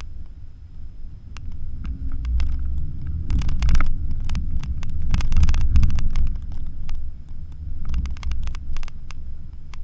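Inside the cabin of a Porsche Macan driving on a rutted sandy dirt road: a heavy low rumble of tyres and suspension over the ground, with many sharp knocks and clicks as it bumps over ruts. The rumble and knocks are loudest in the middle.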